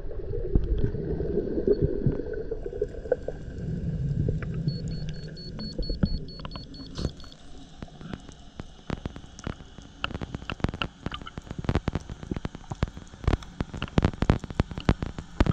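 Underwater sound of a free dive, heard through a mask-mounted camera's housing. There is a low rush of water for the first few seconds, then irregular sharp clicks and crackles that grow denser in the second half.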